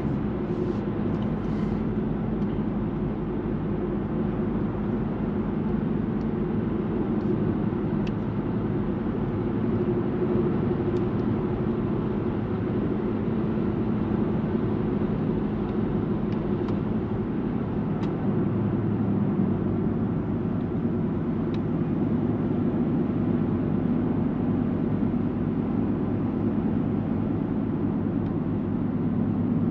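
Opel Insignia 1.6 CDTI four-cylinder turbodiesel heard from inside the cabin while cruising: a steady engine drone over tyre and road noise.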